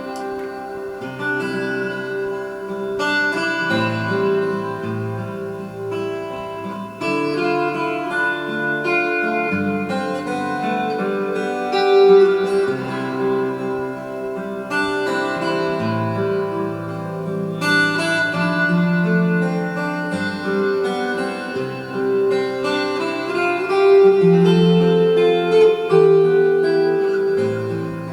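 Slow instrumental music of plucked-string notes over held tones, the chords changing every second or two.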